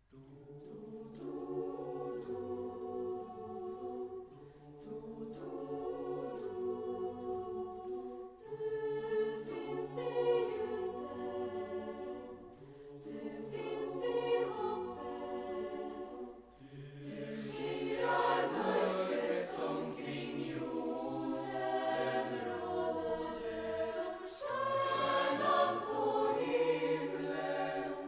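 Youth choir singing a Swedish Lucia song in several voices, in phrases with short breaths between them; the singing starts right at the beginning and swells louder and fuller about two-thirds of the way through.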